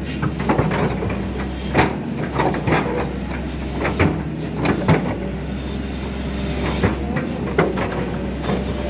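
Hydraulic excavator working: its diesel engine runs steadily under irregular metallic clanks and knocks.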